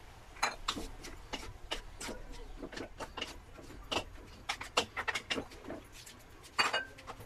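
Two wooden spatulas knocking and scraping against a metal wok as leafy greens and squid are tossed, in irregular clacks a few times a second, with one louder knock near the end.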